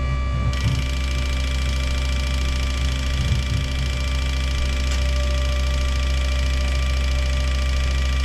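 ASNU injector flow-test machine running a flow test on eight Land Rover V8 fuel injectors: a steady machine hum, and about half a second in the injectors start firing into the measuring tubes, adding a steady hiss that runs on.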